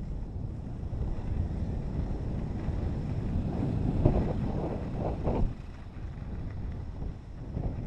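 Wind buffeting the microphone of a moving skier, with the rushing hiss of skis sliding over snow; the noise swells in a few brief louder rushes about halfway through.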